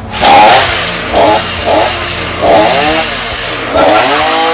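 Petrol chainsaw being revved in about five short bursts, the engine pitch rising and falling with each blip of the throttle and dropping back to idle in between.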